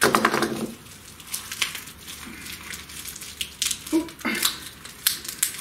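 Plastic packaging crinkling and rustling as a small parcel is slit open with a knife and a linear round rail bearing carriage is unwrapped, with scattered sharp clicks and taps.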